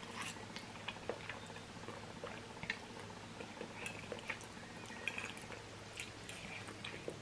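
Soft, wet chewing and mouth sounds of someone eating Korean black bean sauce noodles: scattered small clicks and smacks.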